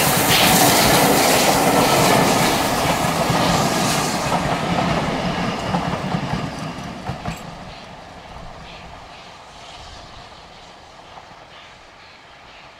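Steam-hauled train passing and moving away: loud at first, fading steadily over the first eight seconds or so to a faint, distant sound.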